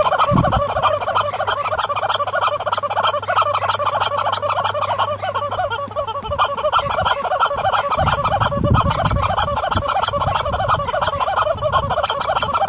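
Yellow rubber squeaky chicken toy squawking over and over in rapid succession as a horse bites and shakes it in its mouth.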